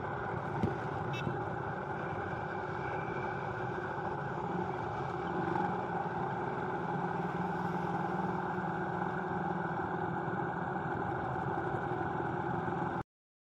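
Steady engine and road noise of a moving vehicle in light road traffic, with a brief click about half a second in.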